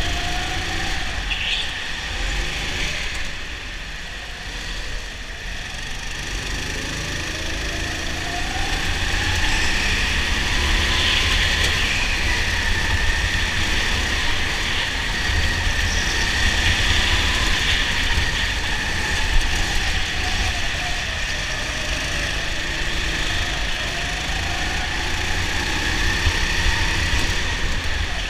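Onboard sound of a rental go-kart's engine at racing speed, its pitch rising and falling again and again as the driver accelerates and lifts around the lap, over a steady low rumble.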